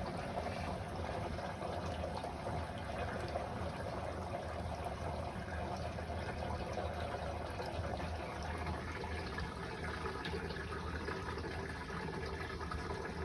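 Dirty wash water draining out of a compact washer-and-spinner's wash tub, a steady running-water sound with a low hum beneath it.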